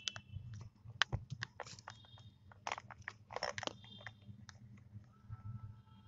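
Barn owlets shifting and stepping on the dry litter of their nest cavity: a run of short crunching clicks and rustles, with a few brief raspy bursts near the middle.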